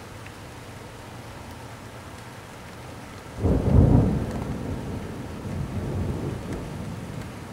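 Thunderstorm: steady rain hiss, then a sudden clap of thunder about halfway through that rolls into a deep rumble, slowly fading.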